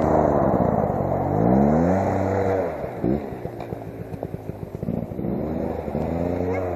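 Two-stroke dirt bike engine revving up and dropping back several times, sputtering unevenly at low revs in between.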